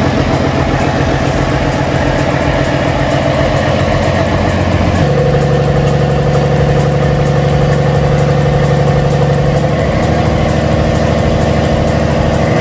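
Rebuilt Caterpillar C13 inline-six diesel engine running on test after its rebuild. Its speed steps up about five seconds in and rises again near ten seconds, to about 1,550 rpm.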